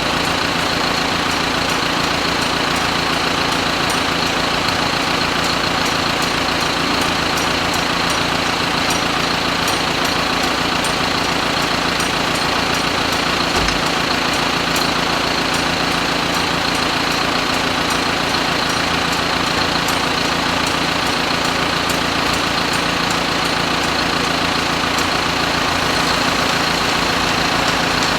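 Quad bike's small engine idling steadily, with a faint regular ticking over the running.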